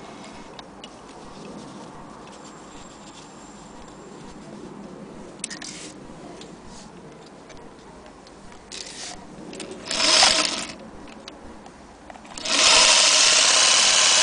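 Singer 222K Featherweight sewing machine running: a short burst of stitching partway in, then running steadily near the end.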